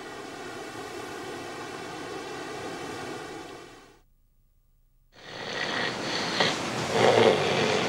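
Steady hiss with a faint buzzing hum that fades out about four seconds in. After about a second of near silence, a rushing noise like wind swells up and keeps going.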